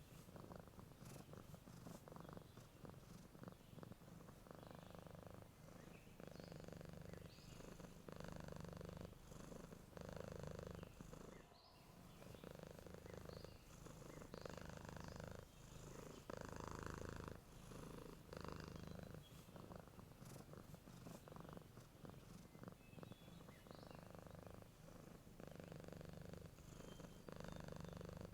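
A sleeping domestic cat purring softly and steadily. The purr swells and eases with its breathing, about once every two seconds.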